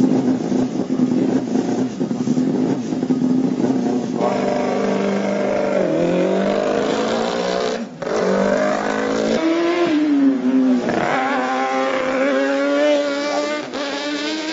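Formula Student race car's engine revving hard on track: it holds a steady note at first, then climbs in pitch and drops back several times as the driver accelerates and changes gear, with a short break about eight seconds in.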